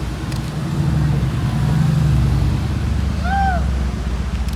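A car engine running at low speed as a car drives by, swelling to its loudest about two seconds in and then easing. A short high chirp sounds about three and a half seconds in.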